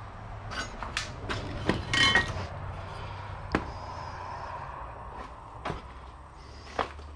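Scattered knocks and clanks of steel scrap parts being handled. The loudest comes about two seconds in, with a short metallic ring.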